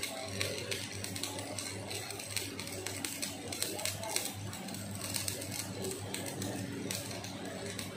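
Electric arc welding crackling and sputtering steadily, laying weld beads to rebuild the surface of a roller crusher's steel roll, over a steady low hum.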